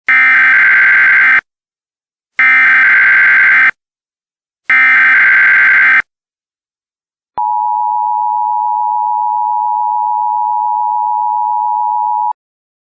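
Emergency Alert System alert tones: three identical short bursts of SAME header data, a harsh buzzy warble about a second and a half each. After a pause comes the steady two-tone EAS attention signal, held for about five seconds before cutting off. This is the sequence that opens a new alert message.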